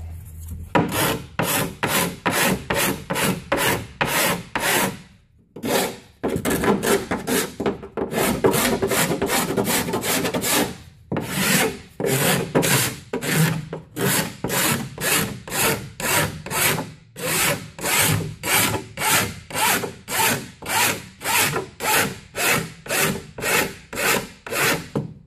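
Hand cabinet scraper scraping back and forth along the edges of fiberglass tape set in partly cured (green-state) epoxy on plywood, knocking off the hard edge of the tape. It goes in quick, even strokes of about two a second, with a couple of short pauses.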